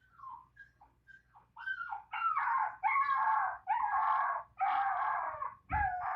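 Puppy whimpering softly in short high squeaks, then crying in a string of about five louder, drawn-out whining howls. The last howl slides down in pitch.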